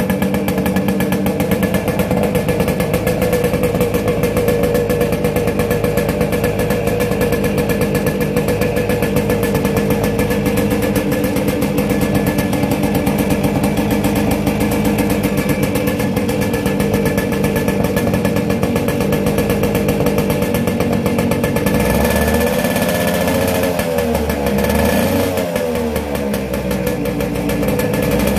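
Two-stroke 100 cc motorcycle engine running at a steady idle, heard at its exhaust outlet. Its revs dip and rise a couple of times about three-quarters of the way through.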